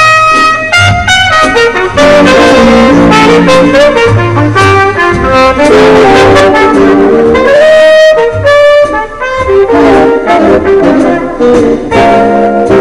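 Jazz music led by a horn section, playing loud and continuous with changing melodic lines over a bass pulse.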